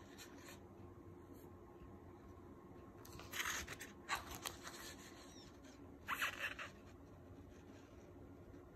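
Stiff glossy pages of a large-format graphic novel being turned by hand: a few short papery swishes and scrapes, starting about three seconds in, again about a second later, and once more near six seconds.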